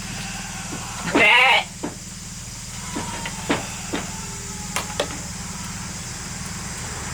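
A sheep bleats once, loudly, about a second in: a short wavering call lasting about half a second. A few soft clicks and knocks follow.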